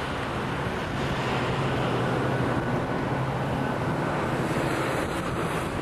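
Strong wind rushing steadily over a camcorder's microphone during a storm, with a faint low hum underneath for a few seconds in the middle.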